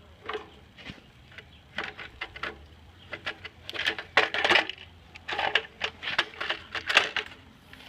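Hard plastic parts of a Nerf blaster clacking and knocking as it is handled and pulled apart, a run of irregular clicks and rattles that gets busier and louder about halfway through.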